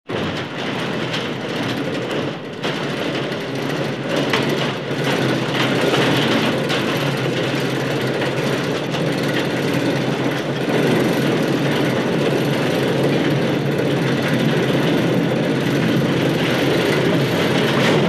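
A door banged and rattled hard and without pause, a continuous clatter of many rapid knocks, a little louder after the first few seconds.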